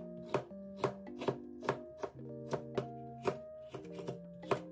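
Kitchen knife slicing a green bell pepper on a cutting board: sharp knocks of the blade meeting the board, about two a second and somewhat uneven. Soft background music with held notes runs underneath.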